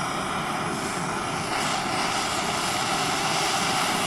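Handheld gas torch burning with a steady hiss, its flame held on an aluminum snowmobile chain case to expand it around a stuck bearing. The sound gets slightly louder about a second and a half in.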